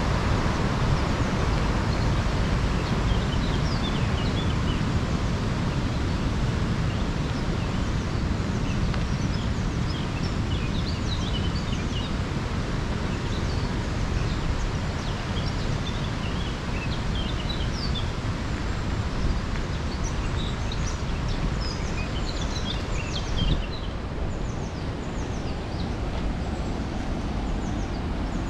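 Small birds chirping over a steady rushing background noise that carries most of the loudness.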